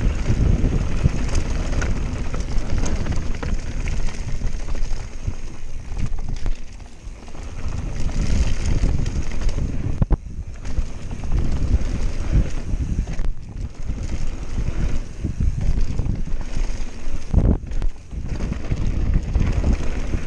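Wind buffeting the microphone as a Canyon Spectral AL 7.0 EX full-suspension mountain bike descends fast, its tyres rolling over loose gravel and dirt. Brief knocks and rattles come from the bike over bumps.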